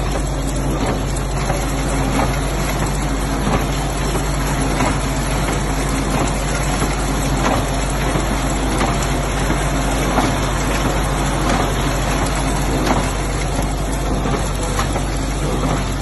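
McCormick IH 55W Electrall baler running and baling straw: a steady mechanical drone with a regular knock about once a second.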